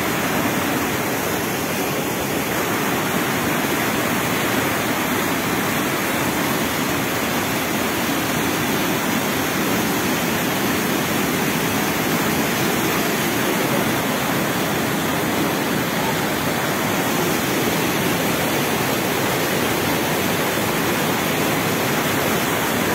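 Floodwater in a rain-swollen creek rushing and churning over rocks as white water: a steady, unbroken noise of fast-flowing water.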